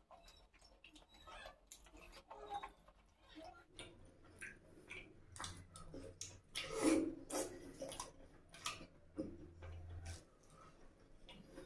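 Close-up eating sounds: wet chewing and mouth clicks as puri soaked in egg curry is eaten by hand, loudest just after a mouthful goes in about six seconds in.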